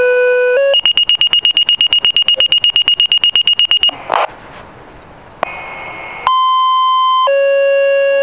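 Motorola Minitor III pager sounding a page through its speaker. A long low tone gives way to about three seconds of rapid high alert beeps. After a few seconds of radio hiss, a new two-tone sequence begins: a higher tone for about a second, then a long lower tone.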